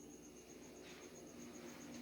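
An insect singing at night: a faint, high, rapid and evenly pulsed trill, cricket-like, going on without a break.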